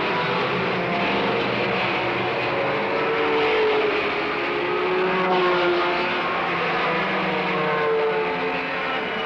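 A pack of racing sports cars, among them Porsche 917s and Ferrari 512s, accelerating past in a continuous stream. Several engine notes overlap, each rising and falling in pitch as cars come through.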